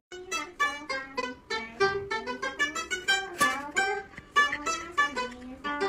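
Chinese plucked lute playing a quick melody of plucked notes, several a second, each ringing briefly.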